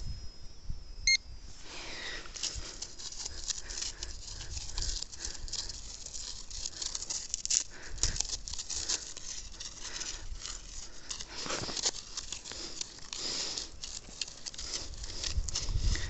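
A handheld Pro-Pointer metal-detecting pinpointer gives one short high beep about a second in as it is switched on. Its plastic tip then scrapes and crunches through loose soil as it is probed around the hole, with no target alert from it.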